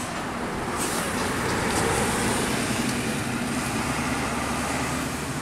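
Diesel tour coach passing close by, its engine running under tyre noise on the asphalt, loudest about two seconds in as it goes past and then pulls away.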